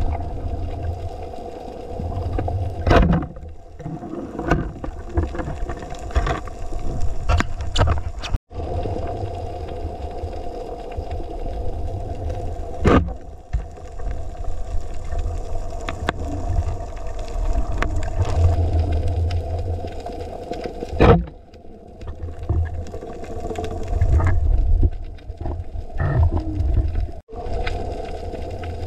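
Underwater sound picked up by a diver's camera: a steady low hum with scattered sharp clicks and knocks.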